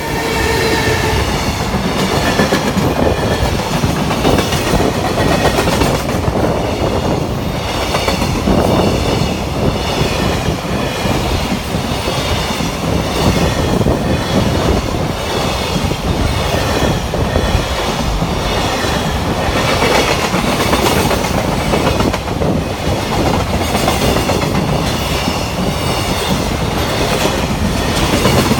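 Container freight train hauled by an EF210 electric locomotive passing close by: a loud, steady rolling clatter of wheels over the rail joints, starting abruptly as the train arrives and continuing as the wagons go past.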